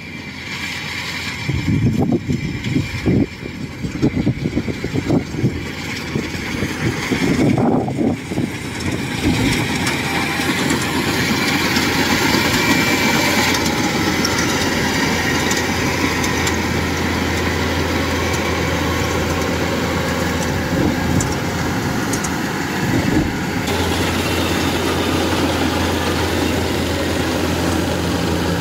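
Kubota DC-105X rice combine harvester running steadily while it cuts and threshes rice, its diesel engine under working load. The first several seconds are rough and uneven before the machine settles into an even, continuous sound.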